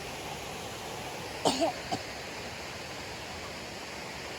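Steady rush of falling water from a nearby waterfall. About a second and a half in, a person gives one short cough-like vocal sound.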